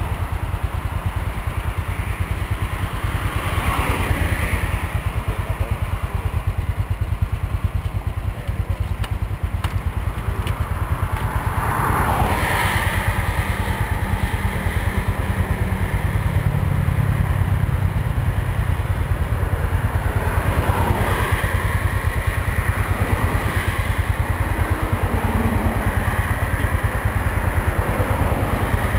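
Roadside traffic: a steady low engine rumble, with vehicles passing by three times, a few seconds in, near the middle and about two-thirds through.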